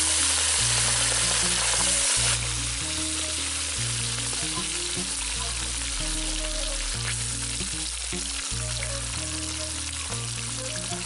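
Katla fish pieces frying in hot mustard oil in a wok: a dense, steady sizzle, loudest for the first couple of seconds after the fish goes in, then easing slightly. Background music with a slow bass line plays underneath.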